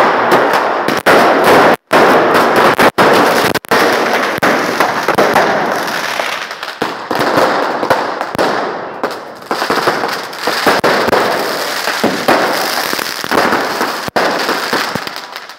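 Fireworks going off at close range: a dense, continuous rattle of rapid pops. It is loudest in the first few seconds and eases somewhat after.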